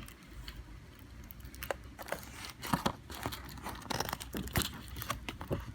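Paper being handled, crinkling and rustling, with scattered small clicks and ticks.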